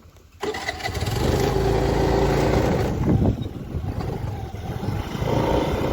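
Motorcycle engine running and pulling away, starting abruptly about half a second in. It eases off about three seconds in and builds again near the end.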